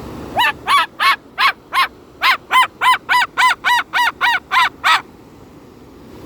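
Moluccan cockatoo barking: a rapid run of about fourteen short, harsh calls, roughly three a second, that stops about five seconds in.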